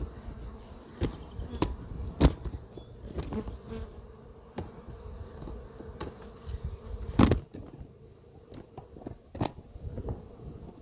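A mass of honeybees buzzing in a steady hum, with scattered sharp knocks over it, the loudest about two seconds in and about seven seconds in.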